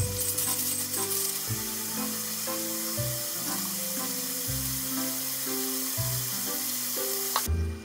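Sauce simmering down in a frying pan on a gas stove, sizzling steadily under soft background music. The sizzle cuts off suddenly near the end.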